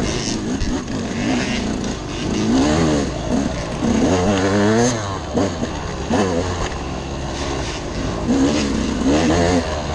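Dirt bike engine ridden hard along a twisting trail, its revs climbing and dropping again and again, about every second or so, as the rider works the throttle.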